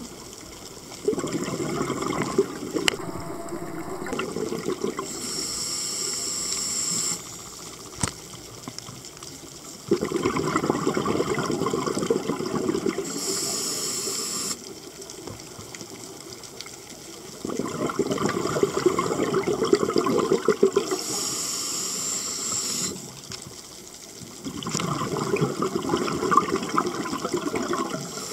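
Scuba diver breathing underwater through a regulator: four long rushes of exhaled bubbles about seven to eight seconds apart, each ending in a short high hiss from the regulator.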